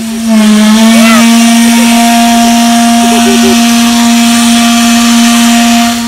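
Steam whistle blowing one long, loud, steady note over a hiss of steam.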